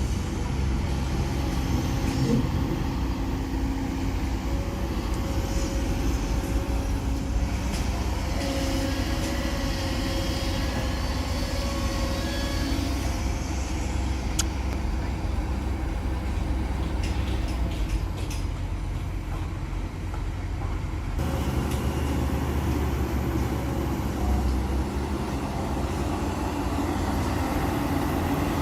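Heavy diesel earthmoving machinery running with a steady low engine drone; the sound changes abruptly about three-quarters of the way through.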